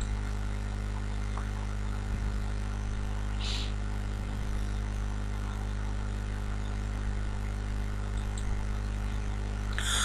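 Steady low electrical mains hum with faint hiss, the background noise of the narration recording. A brief faint hiss comes about three and a half seconds in.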